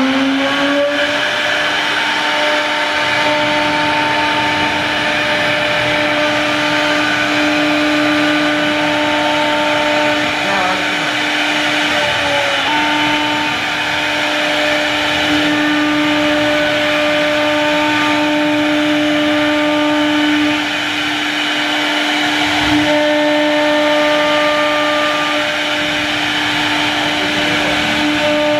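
CNC router spindle whining at high speed as its bit engraves grooves into a laminated particle-board panel, over a steady hiss of cutting. The whine is still rising to full speed at the start, then holds one steady pitch.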